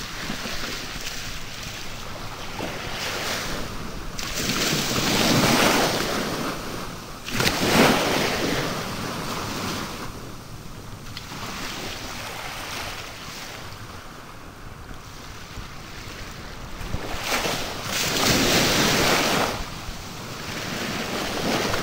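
Sea waves surging and breaking several times, the loudest about a third of the way in, over steady wind noise on the microphone.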